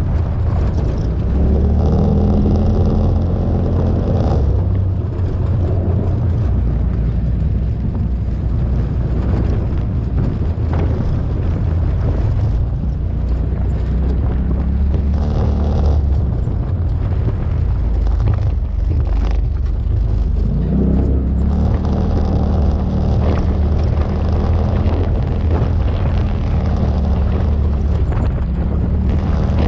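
ATV engine running under way over a rough dirt trail, its note easing off and picking back up several times, with a clear rise about two thirds of the way through.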